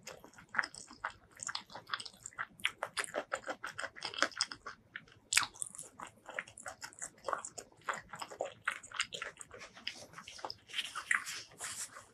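Close-miked biting and chewing of a boiled okra pod: a quick, uneven run of sharp, wet mouth clicks and smacks.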